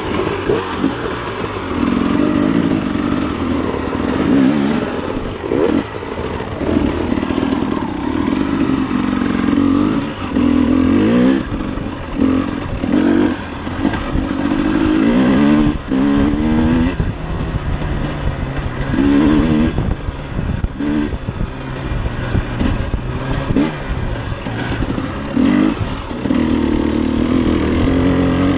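Dirt bike engine being ridden hard on a trail, the revs climbing and dropping again and again as the throttle is opened and shut and the gears change.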